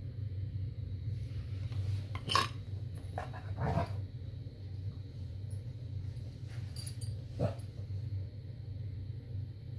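A dog making three short vocal sounds, about two and a half seconds in, near four seconds and near seven and a half seconds, over a steady low hum.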